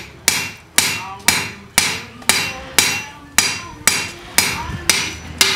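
Hand hammer striking a handled punch held against a hot steel disc on an anvil, stamping rows of dots. The blows come steadily at about two a second, each a sharp metallic strike with a brief ring.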